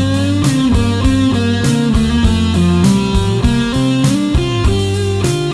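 Electric guitar played through a GP Electronics IC130 MK2 solid-state amplifier, with added delay and reverb: sustained lead notes that bend in pitch. It plays over a rock backing track with bass and drums.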